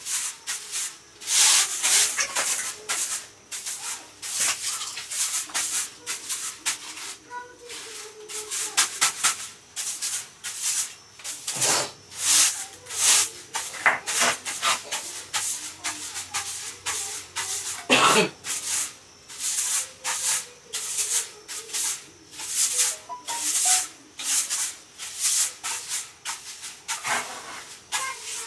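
Broom sweeping a bare floor: repeated short scratchy brushing strokes in an uneven rhythm, about one or two a second.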